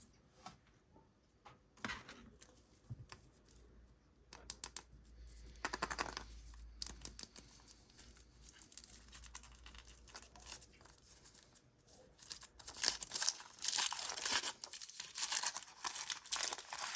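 Surprise egg being worked open by hand: its packaging is torn and crinkled, with scattered clicks and handling noises. The crinkling gets denser and louder in the last four seconds or so.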